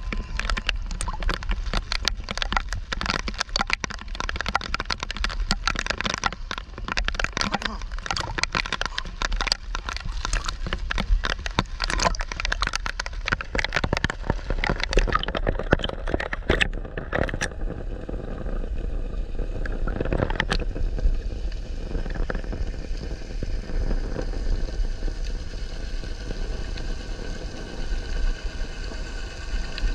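Water splashing and crackling against a camera held at the sea surface, a dense run of sharp clicks and crackles. About seventeen seconds in the camera goes fully under, and the sound turns to a muffled underwater hiss with a faint steady hum.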